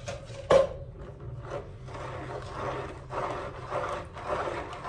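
A plastic spoon stirring and scraping around a plastic bowl of homemade soap mixture, with table salt just added, the scraping swelling and fading with each stroke. A sharp knock about half a second in.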